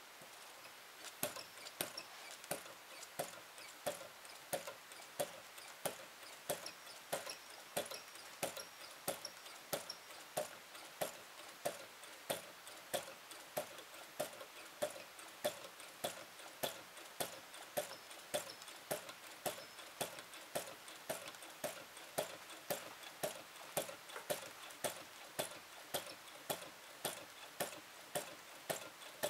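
Model flame-eater (vacuum) engine, started by hand on its flywheel, running steadily with a sharp regular click about twice a second. A faint steady hiss lies underneath.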